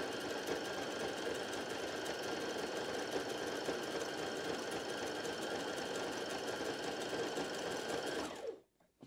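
Brother HF27 heavy-duty sewing machine running at a steady speed as it stitches a wide zigzag through layered fabric. The motor slows with a falling pitch and stops near the end.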